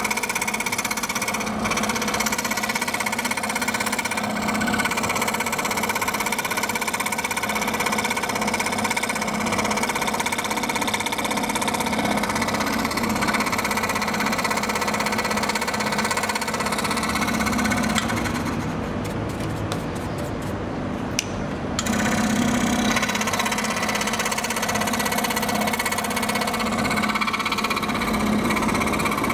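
Electric scroll saw running steadily, its reciprocating blade cutting through a sheet of acrylic. For a few seconds after the middle the higher part of the sound drops away, then comes back.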